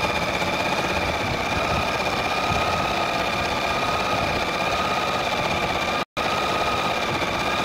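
Janome 6000 electric sewing machine running steadily at speed, stitching cloth: an even, fast needle rattle under a high motor whine, cutting out for an instant about six seconds in.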